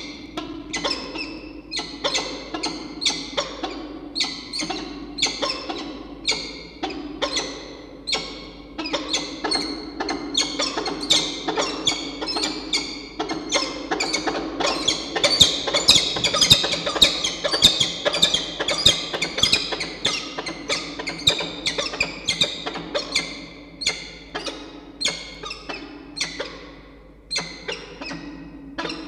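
Peregrine falcons calling over and over in short, quick notes, about two a second, loudest and most crowded around the middle: the vocal part of the pair's bowing courtship display at the nest ledge.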